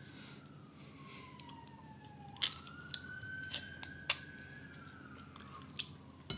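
A faint siren wailing slowly, its pitch sliding down, jumping back up, then easing down again. Over it come about five sharp clicks and crackles of plastic dipping-sauce cups being peeled open and handled.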